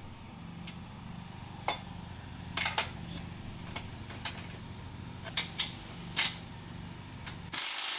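Metal tools clinking against a trailer's bolts and leaf-spring hardware: about eight sharp, irregular clinks over a steady low hum. A loud hiss lasting about a second starts near the end.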